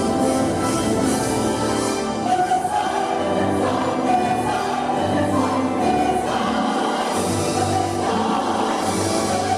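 Show soundtrack music with a choir singing held notes.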